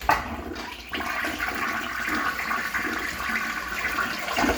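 Decorative Mancesa toilet flushing: a sudden rush of water that fills out about a second in and keeps running steadily.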